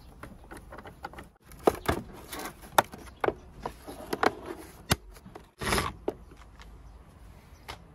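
Hard plastic knocks and clicks as an electric fan's plastic base cover is handled and fitted back on, with a short scraping rush a little past halfway.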